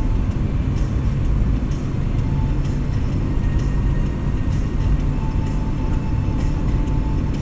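Steady low rumble of a car driving along a paved road, engine and tyre noise heard from inside the car, with faint light ticks now and then.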